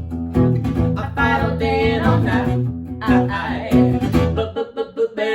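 Music: a song with a steady bass line and a melody over it.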